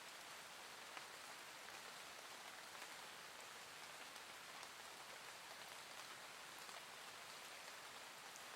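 Soft, steady rain, faint: an even hiss with scattered small drop ticks.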